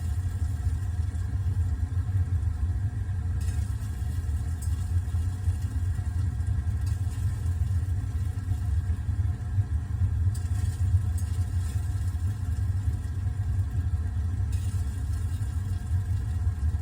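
Gas water heater burner flame burning with a steady low rumble and a faint sizzle, after the pilot light was relit. The orange flame and sizzling are taken by the owner for moisture burning off inside.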